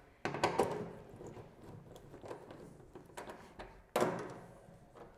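Hand screwdriver tightening stainless steel bolts through an anodized aluminium mounting plate into a plastic kayak deck: a run of small clicks and scrapes from the tool, then a sharper knock about four seconds in.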